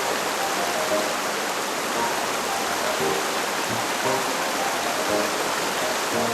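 Clear mountain stream rushing steadily over rocks, with soft background music notes over it.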